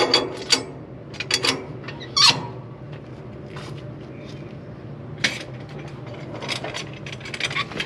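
Sharp metal clicks and clanks as cam-lever hose couplings are handled and locked onto the pump's pipework: a cluster near the start, a lull, then more in the second half. A steady low hum runs underneath.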